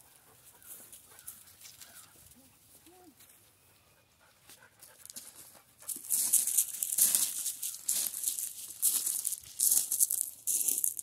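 Footsteps crunching on loose gravel, a run of loud irregular crunches starting about six seconds in. Before that it is quiet apart from a few faint dog whines.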